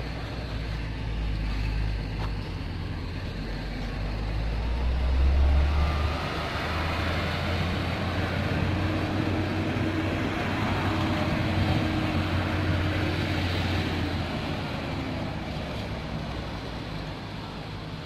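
Heavy diesel truck engine running. The low hum swells to its loudest about five seconds in, then settles to a steady drone that eases off near the end.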